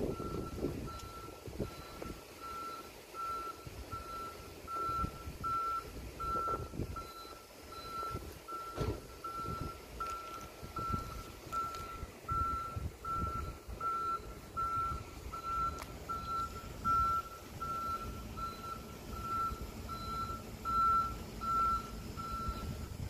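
Level crossing audible warning alarm beeping in a steady pulse of one high tone, about two beeps a second, while the barriers are down; it stops shortly before the end. Low road and wind rumble lies under it.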